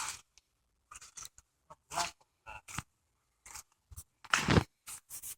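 Footsteps crunching and scuffing on a woodland trail, coming irregularly about once every half second to a second, with a louder scrape about four and a half seconds in.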